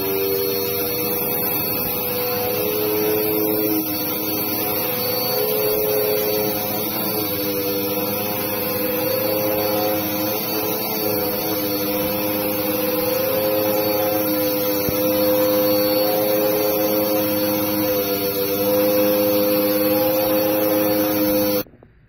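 Dirt Devil Duo upright vacuum cleaner running steadily while vacuuming carpet, a motor whine over a high rushing hiss; it cuts off abruptly near the end.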